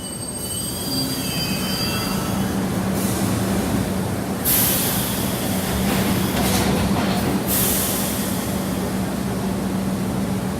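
Subway train running: a steady rumble and hum, with high squeals of the wheels on the rails over the first couple of seconds. Loud bursts of high rushing noise come around the middle.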